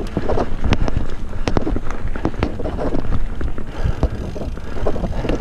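Mountain bike rolling over a bumpy dirt trail: tyre rumble and frequent short rattles and knocks from the bike, with wind buffeting the camera microphone.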